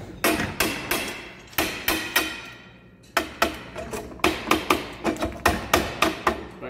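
Hammer blows on the steel parts of a hand-built lime powder marking machine during assembly, each strike ringing briefly. There is an uneven run of strikes, a short pause about halfway, then quicker blows at about three a second.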